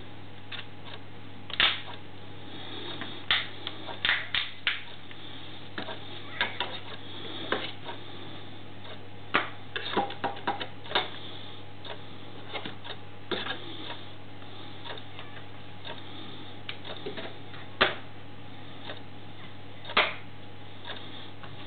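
Irregular plastic clicks and taps from a smartphone being handled: its back cover pressed and snapped into place and a magnetic car phone holder set against the phone's back. A steady low hum runs underneath.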